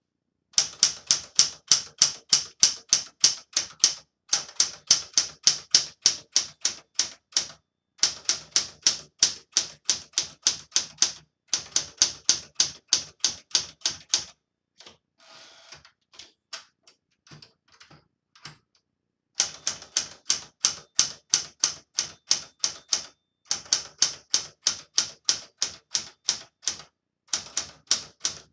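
1969 Smith Corona Super Sterling manual portable typewriter being typed on: runs of sharp key strikes at about four a second, broken by short pauses. Around the middle comes a longer lull of only faint, scattered clicks.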